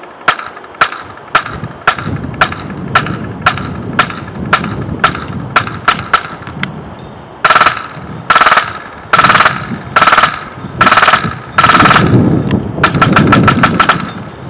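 HPA airsoft rifle with a PolarStar F1 engine firing: single semi-auto shots, a little under two a second, for about the first seven seconds, then a series of short full-auto bursts, ending in a rapid string of shots near the end.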